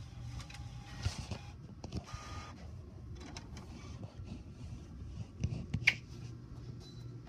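All-in-one inkjet printer running: a steady low hum with scattered clicks, a short whir about two seconds in, and a sharper click just before six seconds in.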